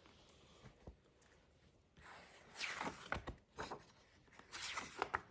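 Faint rustling of a picture book's pages being handled and turned, in two spells, with a few soft knocks.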